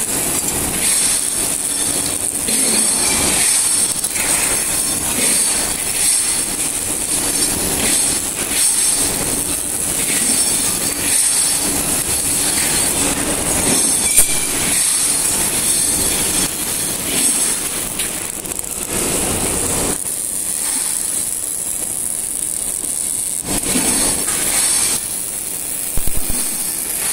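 Robotic arc welding: a continuous hiss and irregular crackle from the welding arcs, with a steady high whine over the workshop noise. It eases a little in the lower range about twenty seconds in.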